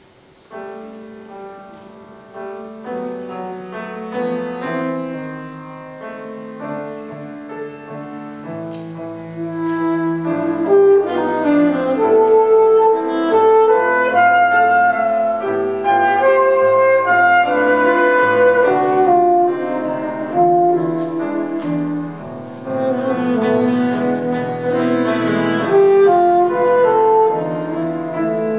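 Saxophone and grand piano playing a classical chamber piece together, starting softly and growing louder over the first ten seconds or so.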